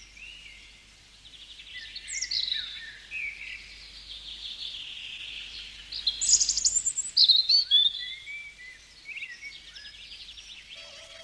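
A songbird singing: a run of varied chirps, fast trills and gliding whistled phrases. Steady-toned music comes in near the end.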